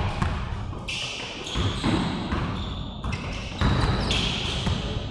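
Basketball bouncing and players' sneakers squeaking and thudding on the gym floor, heard as scattered knocks and short high squeaks. Everything echoes in the large hall.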